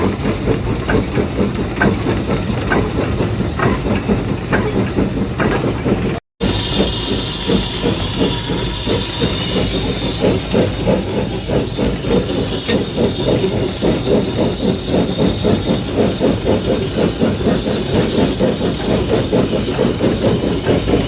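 Steam train running with a fast, continuous rhythmic clatter and a steam hiss. The sound cuts out for an instant about six seconds in, and the hiss is stronger after it.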